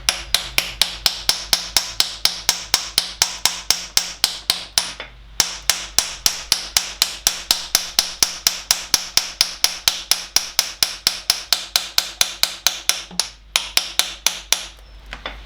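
Hammer rapidly tapping a steel socket to drive a new core plug into a classic Mini A-Series engine block, about five sharp, ringing strikes a second. The run breaks briefly about five seconds in, pauses again near the end, then a few last taps seat the plug.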